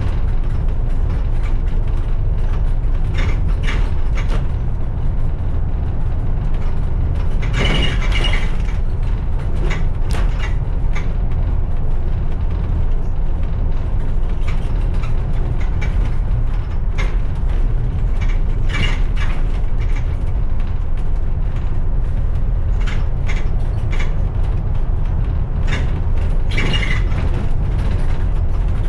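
Steady low rumble of a moving road vehicle heard from on board, with frequent rattles and clicks. Brief higher squeaks stand out about eight seconds in, again near twenty seconds, and near the end.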